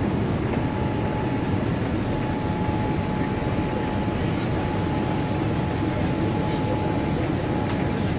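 Boeing 787 Dreamliner cabin noise at takeoff power, heard at a window seat: a loud, steady rumble of engines and rushing air with a thin steady whine over it, as the plane lifts off and climbs.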